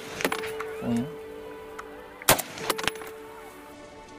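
Rifle shots: a loud crack a little over two seconds in, with fainter cracks near the start and just after it, over steady background music.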